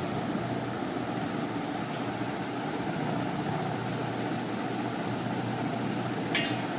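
Steady background hum and hiss, with one sharp click near the end.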